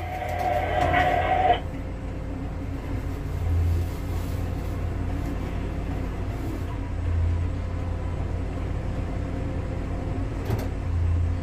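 Low steady machine hum inside a tower crane's cab, swelling slightly every three to four seconds. In the first second and a half a higher steady tone sounds over it and cuts off suddenly.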